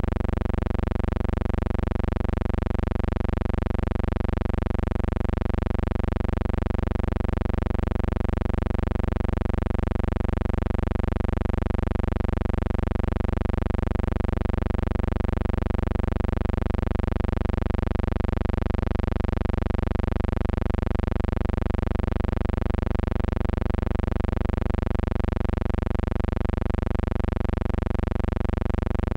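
Steady low electrical hum with a stack of overtones, unchanging in pitch and level throughout.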